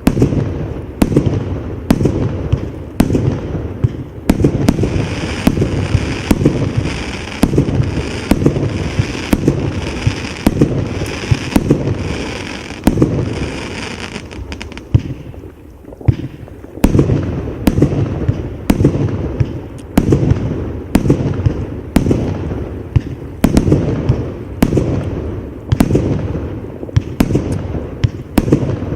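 Multi-shot firework cake firing in a steady string, about two sharp reports a second, each trailed by a low rumble, with crackle between the shots for a stretch in the middle. There is a brief lull about halfway through before the shots resume.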